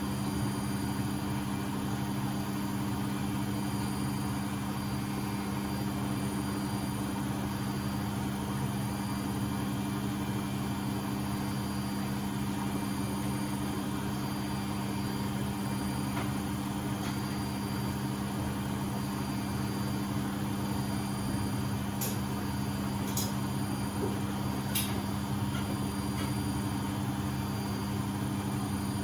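Beko WMB71642W washing machine in its final spin at 1000 rpm, the drum running steadily at full speed with a steady motor hum. A few faint clicks come near the end.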